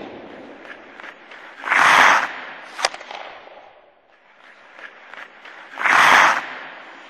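Sound effects for an animated logo: two hissing swells about four seconds apart, each rising and then fading away over a second or more, with a sharp crack just after the first.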